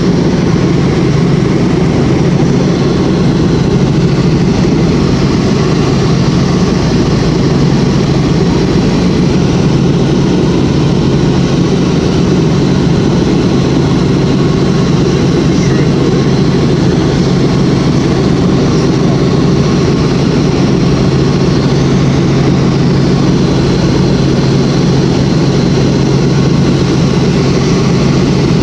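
Helicopter in flight heard from inside the cabin: a loud, steady engine and rotor noise with a deep hum.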